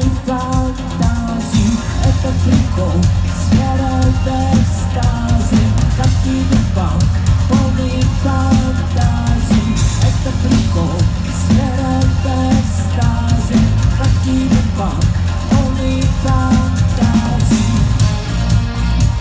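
Rock band playing a song live through a club PA: drum kit with regular cymbal hits, heavy bass, guitars and a wavering melodic lead line.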